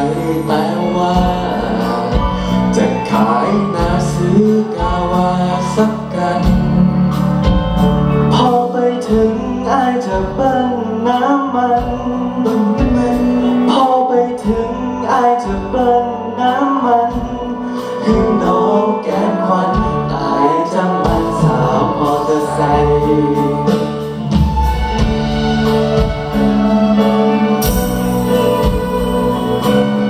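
A male vocalist singing live into a microphone over a live band of electric guitar, bass, keyboard and drums.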